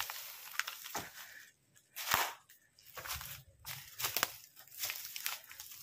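Footsteps crunching and rustling through brush and undergrowth, irregular, with one louder crunch about two seconds in.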